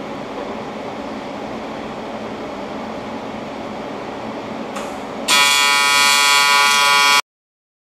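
Steady background whir for about five seconds, then a brief hiss and an AC TIG welding arc on aluminum strikes with a loud, steady buzz that cuts off suddenly about two seconds later.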